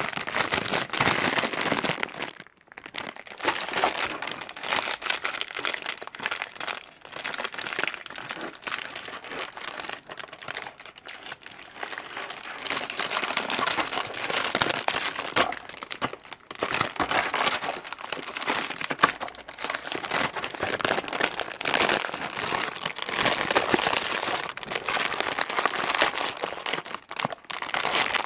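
Plastic packaging crinkling and rustling as it is handled close to the microphone, in a continuous run of small crackles with brief pauses about two and a half seconds in and again a little past the middle.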